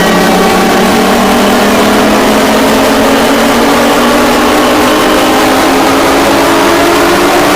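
Harsh, loud mock emergency alert (EAS-style) alarm: a dense stack of steady electronic tones over a rough noise, with the lowest tones slowly gliding upward.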